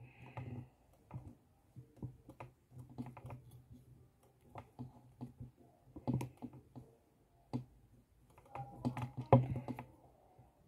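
Irregular small clicks and rustles from hands braiding a plastic doll's synthetic hair and handling the doll, with louder clusters about six seconds in and near the end.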